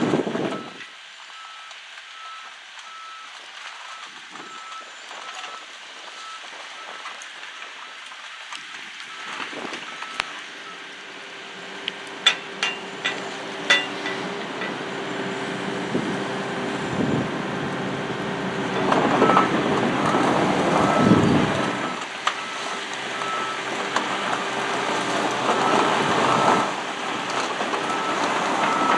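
Takeuchi TB285 excavator's diesel engine running as it tracks over gravel, with its travel alarm beeping over and over. A few sharp metallic clinks come about halfway through, and the machine grows louder near the end.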